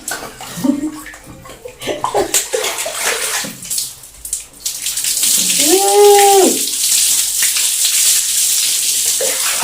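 Running water splashing as a woman's hair is washed, patchy at first, then steadier and louder from about five seconds in. About six seconds in comes a short drawn-out vocal sound.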